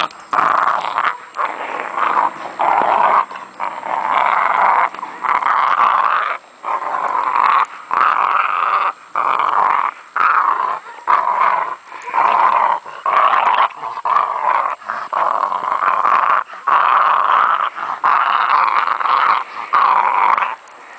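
American Pit Bull Terrier puppy, about two and a half months old, growling while tugging on a rope toy, in a long run of short growls broken by brief pauses.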